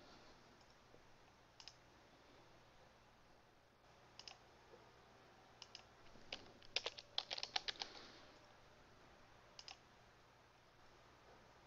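Faint computer keyboard keystrokes and clicks: a few single taps, a quick run of about a dozen keystrokes a little past halfway, and a pair of clicks near the end.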